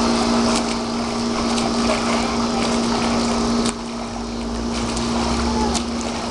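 A steady machine hum at one constant pitch, with the light splashing of a swimmer's freestyle strokes and kicks over it and a few sharp splashes.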